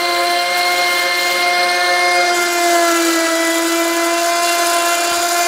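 Trim router running as a CNC spindle, its bit cutting through a wooden board: a steady high motor whine over the rasp of wood being cut. Its pitch sags slightly a little after halfway as the cut loads it.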